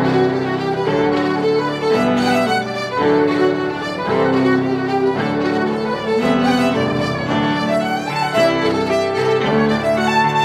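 Background music: a tune of pitched notes changing about every half second at a steady, loud level.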